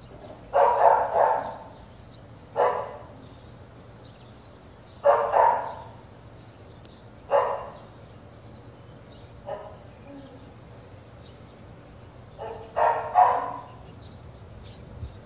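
Belgian Malinois barking in spaced bursts of one to three loud barks every two or three seconds.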